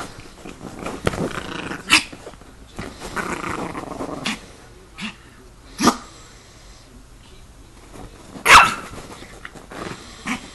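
A chihuahua growling as it attacks a person's hand, broken by several short, sharp yaps, the loudest about eight and a half seconds in.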